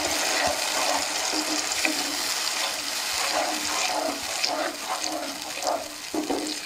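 Wooden spatula stirring a thin, bubbling mustard and tamarind masala in a nonstick pan, with wet sloshing over a steady sizzle; the masala is being boiled down until the oil separates.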